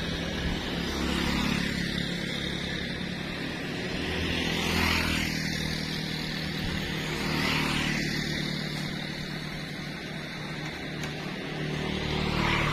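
Road traffic, motorcycles and cars, passing one after another: several pass-bys, each swelling and fading, over a steady traffic rumble.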